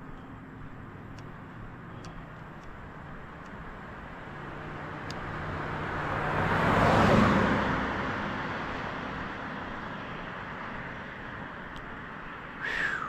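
A vehicle passes by: its noise swells for several seconds, peaks about seven seconds in, then fades away. Near the end comes a short whistle falling in pitch.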